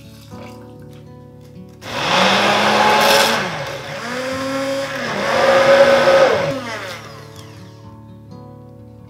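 Hand-held immersion blender running in a tall plastic beaker, grinding sesame seeds and peanut butter into a liquid sauce. It starts about two seconds in and runs in three short bursts, the motor pitch rising as each starts and falling as each stops, before it cuts off near the seven-second mark.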